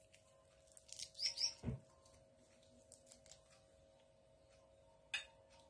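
Hands pulling and tearing the soft pith and membrane off pomelo segments, with faint rustling and light clicks. About a second in, two quick bird chirps and a soft thump stand out over a steady faint hum.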